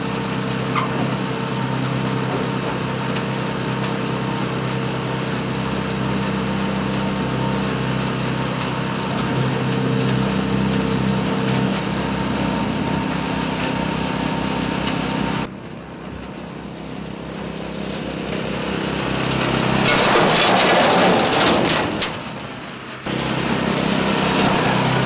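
Small gasoline engine on a Tow Vac tow-behind vacuum sweeper running steadily. About 15 seconds in the sound cuts to a quieter stretch that swells into a loud rushing noise, then the steady engine sound returns near the end.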